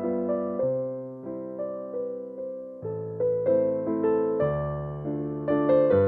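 Background piano music: gentle electric-piano chords and melody, each note struck and fading.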